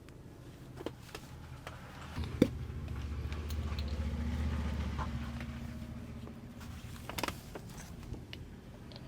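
A low engine rumble swells up and fades away over about four seconds, with a few sharp clicks; the loudest click comes about two and a half seconds in.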